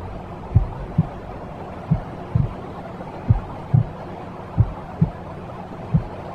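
Slow heartbeat sound, paired low thumps (lub-dub) about every second and a half, over a steady white-noise hiss, made for soothing a baby to sleep.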